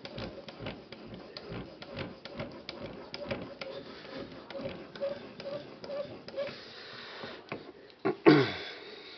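Edge Pro Apex sharpening stone being stroked back and forth along the edge of a Spyderco Endura 4 ZDP-189 blade: a quick, even run of short scrapes, about two to three a second. Near the end comes one louder scrape that falls in pitch.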